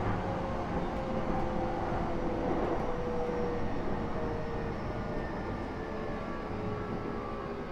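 E233 series 3000 electric train heard from inside the passenger car: traction motor whine, several tones slowly falling in pitch as the train slows, over a steady rumble of wheels on rail.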